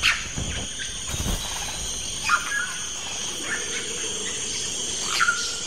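Rainforest ambience: a steady drone of insects, with two short bird calls, about two seconds in and near the end. A few low whooshes in the first second or so match a harpy eagle's wingbeats as it lands on its nest.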